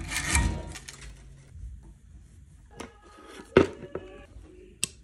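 A bass guitar being handled while it is taken apart. It opens with a scraping rub of strings and wood, then comes a series of sharp knocks, the loudest about three and a half seconds in with a brief metallic ring after it.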